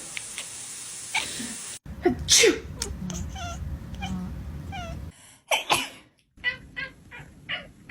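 A person sneezing and a cat answering with short meows, in separate clips: a loud sneeze about two and a half seconds in followed by three faint mews, another loud sneeze a little past the middle, then several short sharp sounds.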